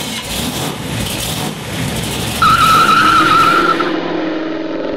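Car sound effect: a noisy rush of engine and tyres, then a loud, wavering tyre squeal from about two and a half seconds in lasting over a second, followed by an engine note that starts to fade near the end.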